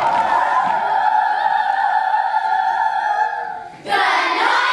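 Children's choir holding one long final note, which fades out about three and a half seconds in. A sudden burst of many voices follows near the end.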